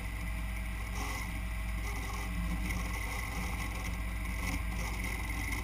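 Harbor Freight mini lathe running steadily as an aluminium tube is worked by hand on it, a continuous hum with a thin steady high tone.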